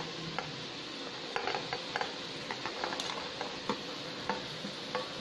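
Chopped carrots and green beans being slid by hand off a steel plate into a pressure cooker: scattered light clicks and taps of the pieces landing, over the steady sizzle of the masala frying in oil.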